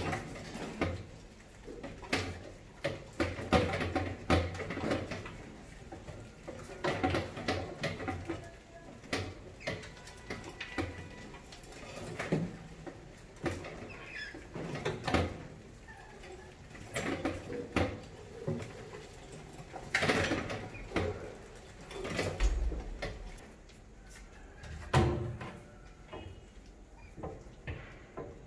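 Mice scrambling over a glass tank trap and a row of aluminium beer cans: irregular clicks, taps and knocks of claws and bodies on glass and metal.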